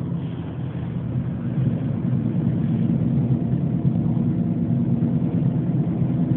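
A car's engine and road noise heard from inside the cabin while driving: a steady low hum that grows slightly louder after about two seconds.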